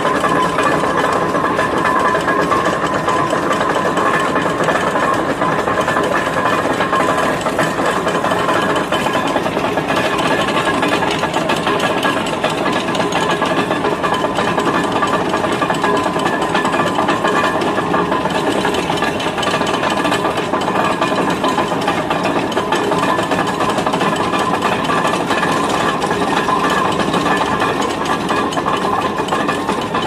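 Steam ploughing rig at work: a balance plough hauled across the field on a wire rope by a steam ploughing engine's winch, a steady mechanical running with rattling.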